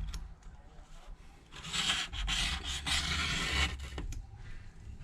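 A tool scraping and rubbing along the iPad's frame, loudest for about two seconds in the middle, as the frame surface is prepped for the new screen.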